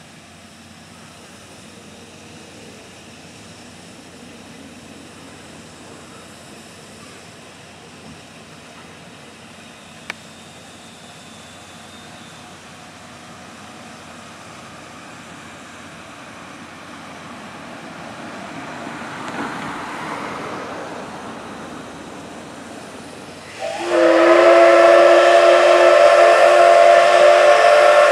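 C58 363 steam locomotive standing with steam hissing faintly. Near the end its steam whistle blows, loud and steady, with several tones at once: the whistle signal for departure.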